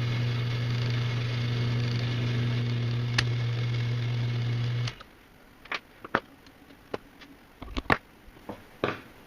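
Electric motor of an Ilco 017 key duplicator running with a steady hum, switched off about five seconds in. Then a few light clicks and knocks of the machine being handled.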